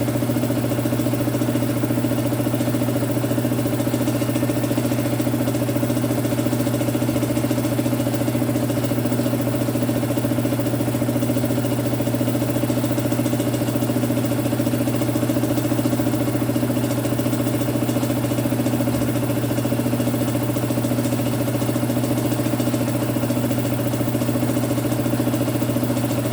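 Electric compressor running steadily with a constant hum.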